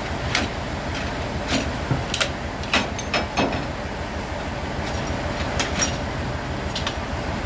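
Machinery running with a steady low drone, broken by about ten sharp, irregular clacks and knocks.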